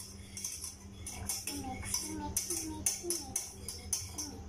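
Wire whisk stirring milk and egg yolk in a small stainless steel saucepan, a rapid run of metal clinks and scrapes against the pan. From about a second in, a child's voice sings short notes over it.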